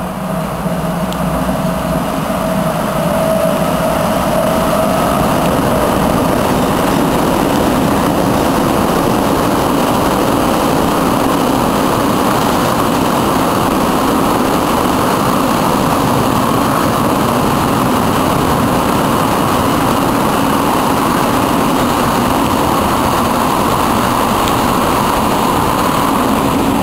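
Freight train of loaded open coal wagons rolling past close by: a steady, loud rolling noise of steel wheels on rail. A steady hum from the passing locomotive stands out for the first few seconds.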